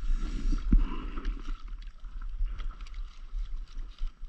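Water lapping against an inflatable stand-up paddleboard with wind rumbling on the microphone, and scattered small clicks from handling fishing gear.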